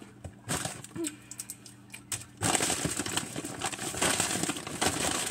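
Plastic candy packaging crinkling as it is handled: a few faint rustles at first, then dense, steady crinkling from about two and a half seconds in.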